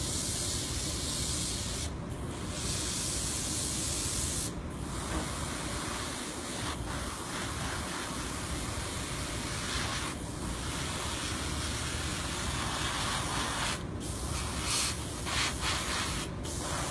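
Siphon-feed airbrush spraying paint in a steady hiss, broken by several short pauses.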